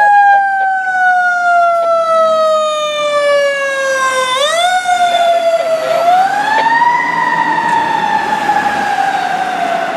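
Fire engine siren wailing on a Pierce Arrow XT engine running on an emergency call. The wail slowly falls in pitch, jumps back up about four seconds in, climbs again a couple of seconds later, then slowly falls away.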